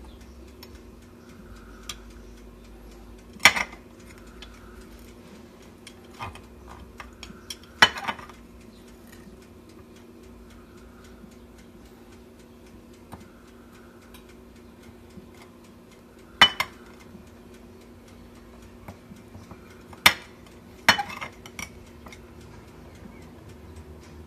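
Steel table knife clinking and scraping against a ceramic plate and a roasted marrow bone while scooping out the marrow: a handful of sharp clinks spread out, two close together near the end, with quieter taps between, over a low steady hum.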